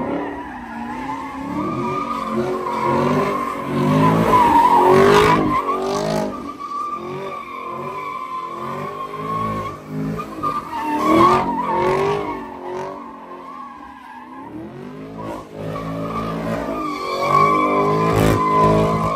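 Car engines revving hard up and down, with tires squealing and spinning as the cars slide in donuts on wet pavement. There are several louder surges along the way.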